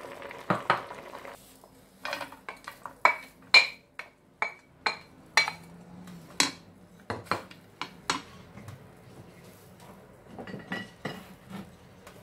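A pot of mutton stew bubbles briefly at the start. Then sliced onions are tipped from a bowl into a dry non-stick frying pan, giving a string of sharp clicks and knocks as the bowl and onions hit the pan. A few more knocks come near the end as a wooden spatula spreads the onions.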